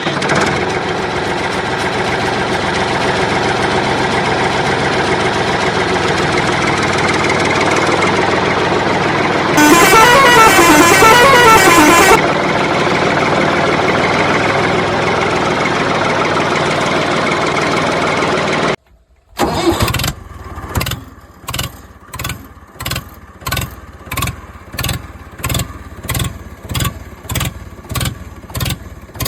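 Vehicle engine running steadily, with a warbling horn that rises and falls in pitch for about two seconds in the middle. After a brief cut-out, it gives way to an even pulsing of about two beats a second.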